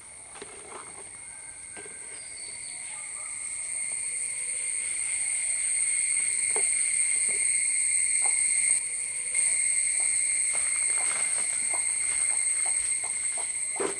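An insect's steady high-pitched drone, swelling over the first few seconds and then holding, with a short dip about nine seconds in. Faint light clicks and straw rustles come and go as eggs are set into a straw nest.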